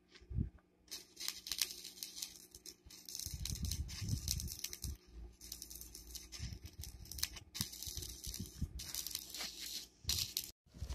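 Electric arc welding on a steel trailer drawbar: the arc crackles and sizzles in runs with short pauses, starting about a second in.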